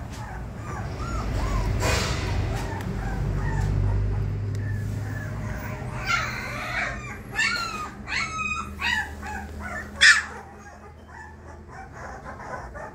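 Twenty-day-old Labrador puppies whimpering and yipping in short high squeaks, breaking into louder wavering yelps about six seconds in, with the loudest cry near the ten-second mark.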